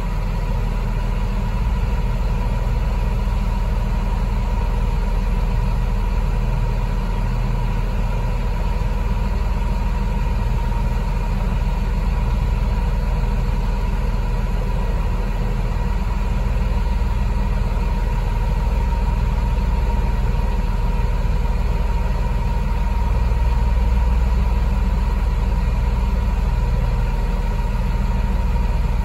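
Wheel loader's diesel engine idling steadily, a low rumble with a thin steady tone over it.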